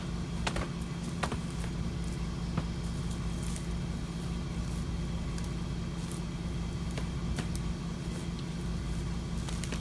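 An engine running steadily at low speed, an even hum with a few sharp clicks in the first seconds.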